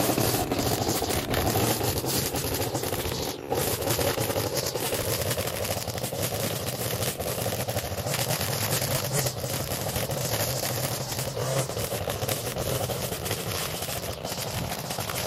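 Small gas engine of lawn equipment running steadily under load, with scattered clicks and scraping throughout and a brief dip about three and a half seconds in.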